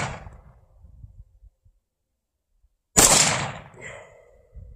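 AR-15 rifle firing a single shot about three seconds in: a sharp crack that dies away over about a second. The fading tail of the previous shot is heard at the very start.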